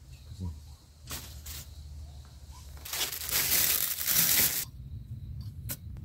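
Crinkling, rustling noise: two short bursts about a second in, then a louder stretch lasting about a second and a half past the middle, over a low steady hum, with a few small ticks near the end.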